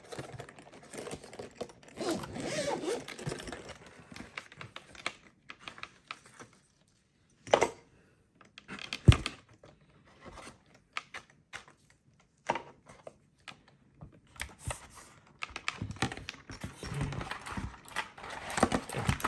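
Handling of a hard-shell keyboard case: a zip rasping open and shut twice, with rustling and a few separate sharp knocks as the mechanical keyboard is set into it.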